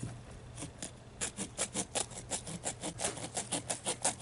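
A worn hacksaw blade, held in the hand, sawing back and forth on the thin metal pin of an ink-filled clothing security tag. It goes in quick, short rasping strokes, about four a second, picking up again about a second in after a brief pause.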